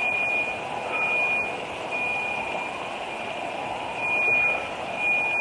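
An electronic alarm beeping, repeated high-pitched beeps about half a second long, roughly one a second, over a steady rushing noise.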